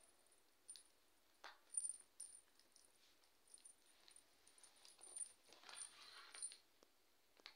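Faint jingling of a small bell inside a plastic cat toy ball as kittens bat and tussle over it, in short irregular bursts, loudest about two seconds in, with soft scuffling of paws on a rug around six seconds in.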